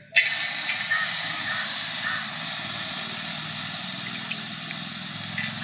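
Small dried prawns dropped onto a hot iron pan. They start sizzling at once with a loud hiss that carries on steadily and eases a little.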